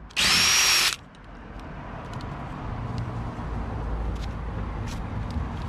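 A short, loud hiss with a thin high whistle in it, lasting under a second, then a low steady rumble that slowly grows, with a few faint clicks.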